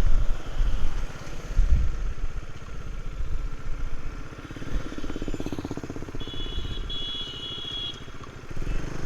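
Motorcycle engine running at road speed, picked up by a clip-on microphone along with wind noise. A brief high-pitched tone sounds about six seconds in.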